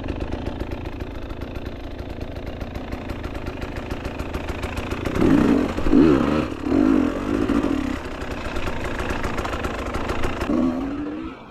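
Dirt bike engine running on the trail, with several louder rev surges in the middle and a short rising rev near the end. The audio is sped up to one and a half times, so the engine sounds higher and faster.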